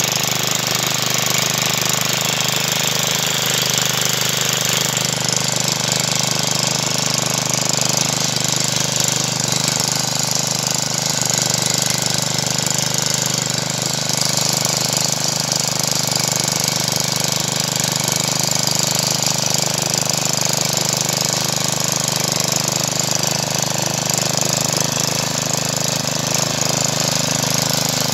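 GeoTech GT 430 garden tiller's 161 cc OHV four-stroke petrol engine running steadily as its tines dig through soil.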